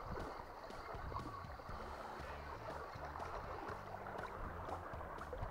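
Steady rush of flowing water on a shallow river riffle.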